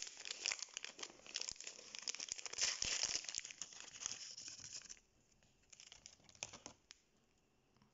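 A crinkly plastic toy wrapper being torn open and peeled off a small doll by hand, crackling densely for about five seconds, then a few scattered crinkles.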